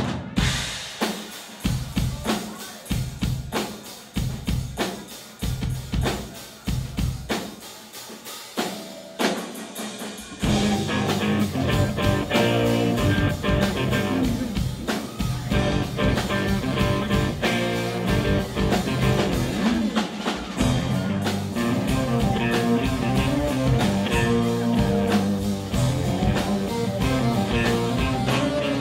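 Live rock band: a sparse passage of drum hits with gaps between them, then about ten seconds in the full band comes in, with electric guitar over the drums.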